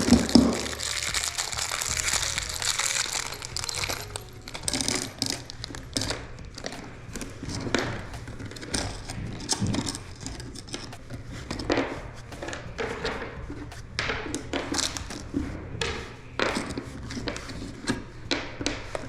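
Irregular knocks, clicks and rustling from hand work on a door's hinges, with faint background music.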